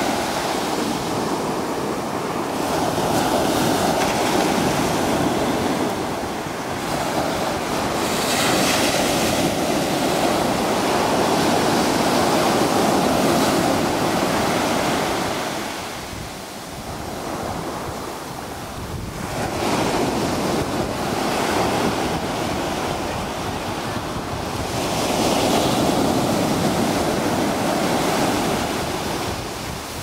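Ocean surf: waves breaking and washing up the beach in a continuous rush that swells and eases every several seconds, with a brief lull a little past halfway.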